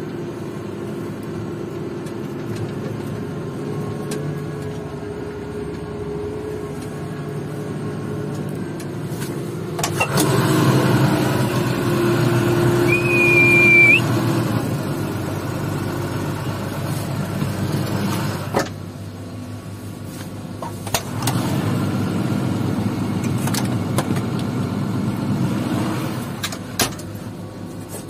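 Tractor engine running steadily, its sound shifting about ten seconds in and again near eighteen seconds. A brief high-pitched tone sounds around thirteen seconds in.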